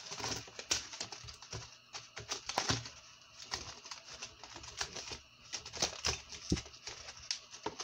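Irregular clicks and crackles of clear plastic lure packaging being handled and opened by hand.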